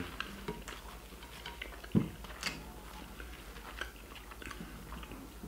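Close-miked mouth sounds of a man eating French fries: soft chewing with small wet clicks and smacks, and a sharper low thump about two seconds in.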